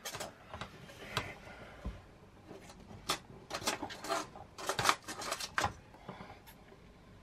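Scattered light clicks, taps and scrapes from a steel tape measure and a pencil being handled against a timber frame while measuring and marking, busiest from about three to six seconds in.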